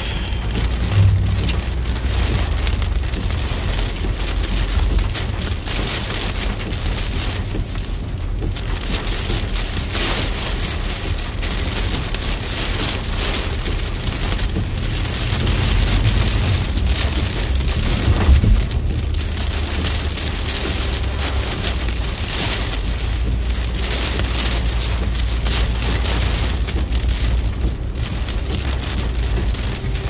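Heavy rain hitting a moving car's windshield and roof, heard from inside the car as a steady hiss over a low road rumble. A brief low thump comes about a second in and another a little past the middle.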